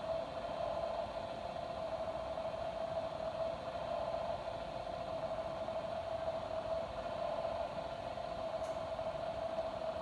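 Steady hiss with a faint constant hum, unchanging, with no distinct events.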